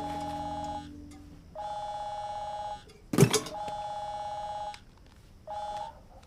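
A telephone ringing: a two-tone electronic ring in bursts of about a second with shorter gaps, four times, the last cut short. A single loud knock sounds about three seconds in.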